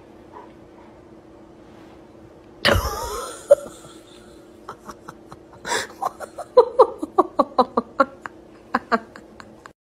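A sudden loud roar from a bear on the television about three seconds in, fading over a second. From about six seconds, a person laughs in quick short bursts.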